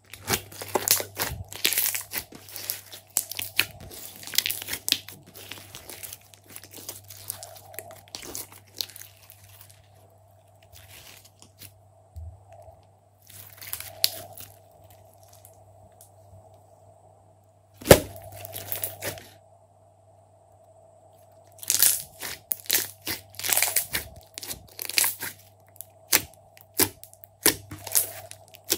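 Glossy slime being stretched, folded and squeezed by hand, giving irregular crackling and popping clicks in flurries with quieter pauses, and one loud snap about eighteen seconds in. A faint steady hum sits underneath.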